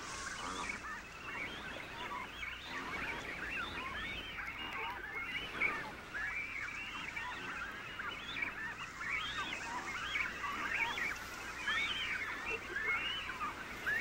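A crowded imperial cormorant nesting colony: many birds calling at once, an unbroken chorus of short, overlapping calls as they squabble over nests.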